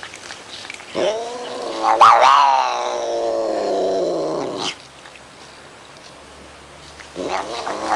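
A cat yowling: one long, drawn-out yowl that rises sharply in pitch, and a second one starting near the end.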